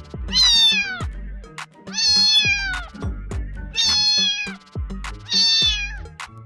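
Kitten meowing four times at about one-and-a-half-second intervals; each high, drawn-out meow drops in pitch at the end. Background music with a steady beat plays underneath.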